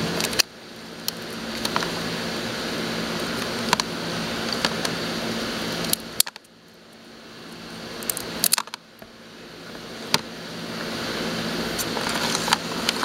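Scissors snipping through a hermit crab's legs: sharp clicks at irregular intervals, about one every second or two. Behind them runs a steady hum and hiss, like a fan or air conditioner.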